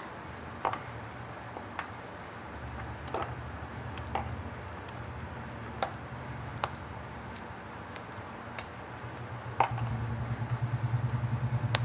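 Scattered light clicks and taps as dough is divided and shaped into large balls by hand, over a low hum that grows louder and pulses rapidly near the end.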